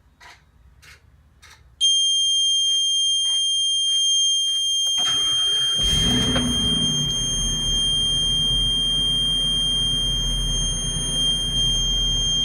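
A few faint clicks, then a loud, steady, high-pitched warning buzzer comes on about two seconds in and keeps sounding: the bus's low air pressure warning. About five seconds in, the 2020 Blue Bird Vision school bus's gasoline engine cranks, catches and settles into a steady idle under the buzzer.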